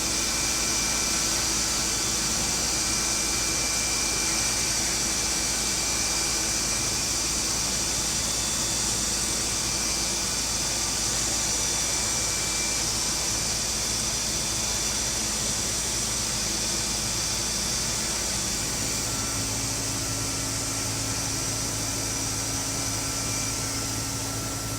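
YL12242R+B CNC wood router running steadily: a continuous machine noise with a steady high-pitched tone over it.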